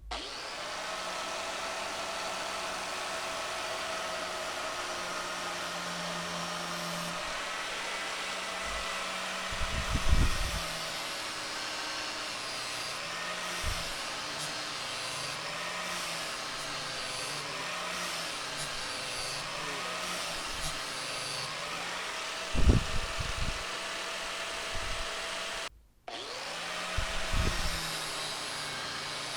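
Angle grinder with a 120-grit flap disc running steadily while sharpening a dull mower blade, working along the underside of the edge. It stops for a moment near the end and starts again, with a few loud low bumps along the way.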